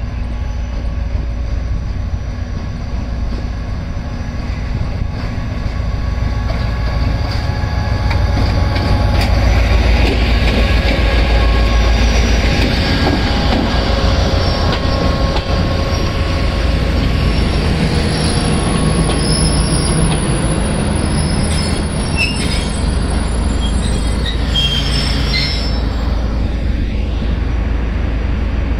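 A passenger train pulls in behind a Pakistan Railways HGMU-30 diesel-electric locomotive. The locomotive's engine and the rolling coaches make a heavy, steady rumble that grows loudest about ten seconds in. High wheel squeal joins it in the later part as the coaches take the curve onto the loop line.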